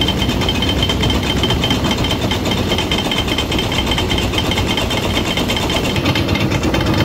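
A 1950 Farmall Cub's four-cylinder engine runs steadily, driving a Meadows grist mill as it grinds corn into meal, with the mill's rattle mixed in. The sound keeps an even, fast pulse.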